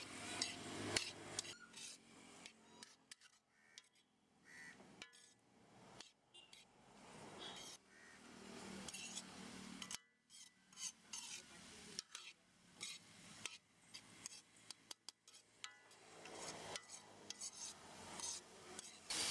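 Steel ladle stirring chopped ridge gourd in a metal kadai, with irregular scrapes and clinks of metal on metal.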